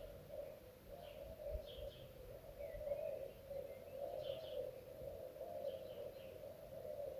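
Birds chirping in a garden: short high calls about once a second, with one gliding call near the middle, over a steady low wavering sound.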